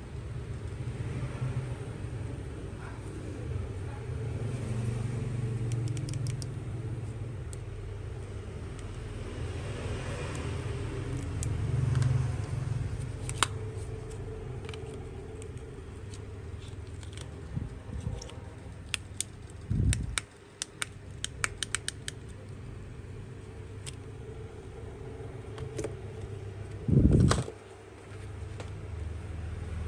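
Sharp small clicks and taps, typical of tools and small hard parts being handled at a workbench, over a steady low rumble. Two dull thumps, one past the middle and a louder one near the end.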